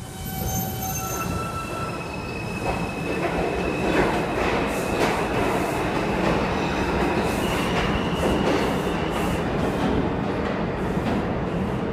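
R142 subway train pulling out of the station past the platform, getting louder over the first few seconds. Wheels clatter over the rail joints, with high-pitched steady whines and wheel squeal.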